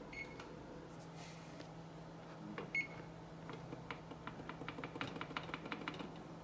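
Electric range's touch control panel: a short high beep near the start and another just under three seconds in as keys are pressed, then a quick run of light clicks as the + key is tapped over and over to raise the oven temperature. A faint steady low hum runs underneath.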